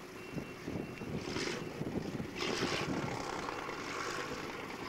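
Tracked armoured vehicle running as it drives, a steady engine drone with two louder rushes of noise, about a second and a half and two and a half seconds in.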